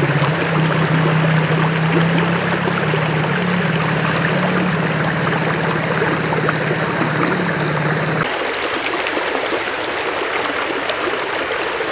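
Shallow river water rushing steadily over rocks. A low droning tone shifts pitch a few times under it and cuts off suddenly about eight seconds in.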